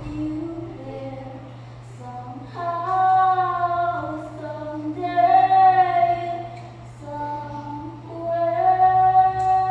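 A woman singing a slow song in long held notes, in three swelling phrases, with a steady low hum underneath.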